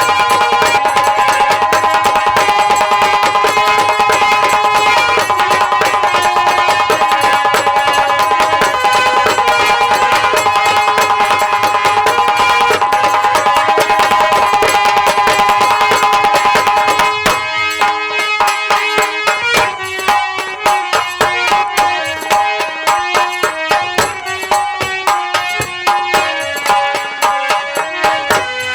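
Live instrumental folk music of a nautanki troupe: sustained melody instruments over hand drums, loud and dense. About seventeen seconds in the texture suddenly thins to rhythmic hand-drum strokes under a lighter melodic line.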